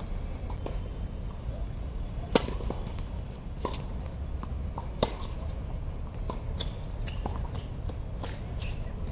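Tennis ball struck by rackets and bouncing during a rally on a hard court: a string of sharp pops, the loudest about two and a half and five seconds in. A steady high-pitched whine runs underneath.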